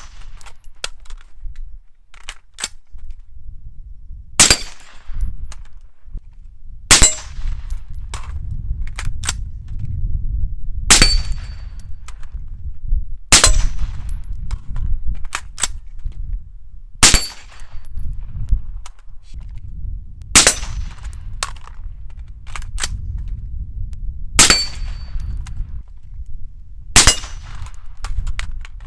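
Integrally suppressed Gemtech Integra rifle fired eight times in slow succession, a few seconds between shots, several followed by a brief ring like a steel target being hit. A steady low rumble of wind on the microphone runs underneath.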